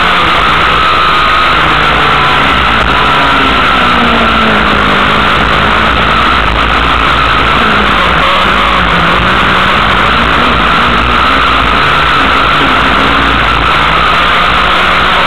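Dirt-track race car engine heard from inside the cockpit, running hard around the track, its pitch dropping and climbing again several times as the car slows for turns and accelerates out, over a steady rush of tyre and gravel noise.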